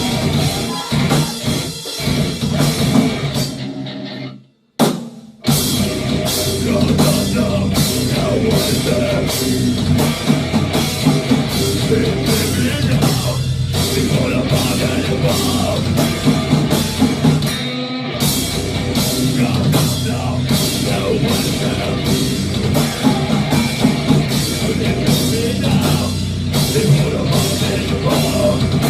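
Rock band playing live with a full drum kit keeping a steady, driving beat. About four and a half seconds in the band stops dead for about a second, a single hit lands in the gap, and then the full band comes back in.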